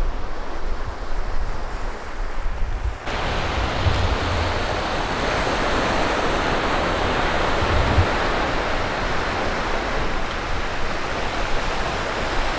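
Sea surf washing onto a sandy beach, a steady hiss, with wind buffeting the microphone. For the first three seconds it is mostly low wind rumble, then it switches abruptly to a fuller wash of waves.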